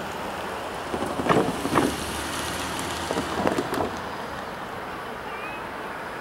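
Steady outdoor background noise like wind, with four short, harsh sounds in two pairs: one pair a little over a second in, the other about three and a half seconds in.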